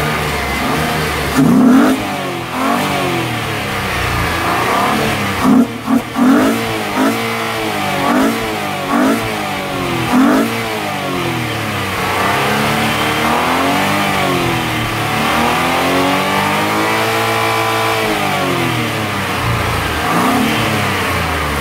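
A 2011 Holden Commodore's 3.6-litre V6 engine running and being revved: repeated short blips of the throttle through the first half, then slower, longer climbs and falls in revs.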